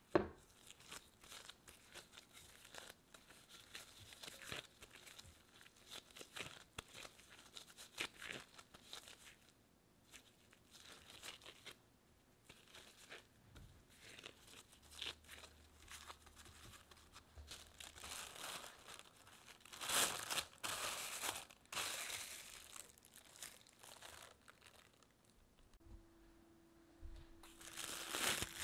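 Gloved hands working sticky bread dough in a glass bowl: soft irregular sticky slaps and glove crackles. A few louder rustling bursts follow in the second half, and near the end plastic cling wrap crinkles as it is stretched over the bowl.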